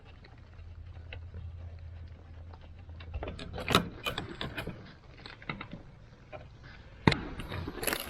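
Clicks, taps and light metallic rattling from hands and a tool working an old wall outlet and its receptacle loose, with two sharp clicks standing out, a little before the middle and near the end. A low hum runs under the first few seconds and stops.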